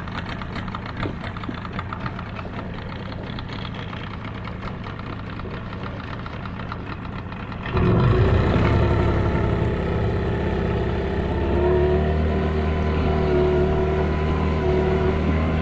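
Boat outboard motor running with a fast clatter, then about eight seconds in it suddenly gets louder and settles into a steadier hum, as if opened up to cruising speed.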